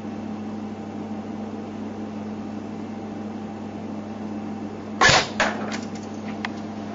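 Realsword Type 97 airsoft electric rifle firing: a sharp shot about five seconds in and a second under half a second later, then a few fainter clicks, over a steady low hum.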